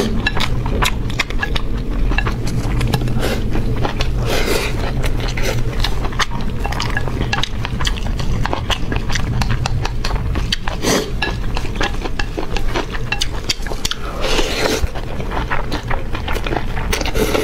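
Close-miked eating of braised pork belly and rice: chewing and many small clinks and taps of chopsticks and spoons against bowls, over a steady low hum.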